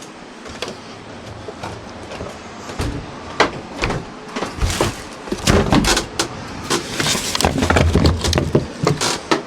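Scattered knocks, clicks and rustling of hands handling tools and parts, busier in the second half.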